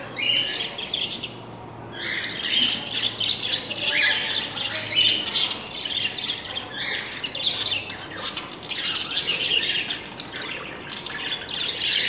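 A cage of budgerigars chattering, with many short, rapid chirps and squawks overlapping without pause.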